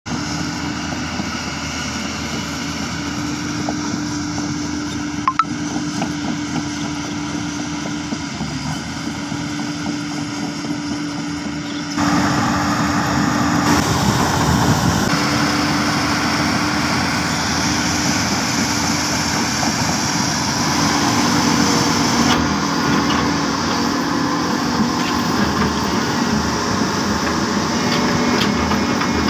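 Diesel engines of hydraulic crawler excavators running at work: a steady machine drone with a constant low hum. It steps up louder about twelve seconds in and shifts again around twenty-two seconds.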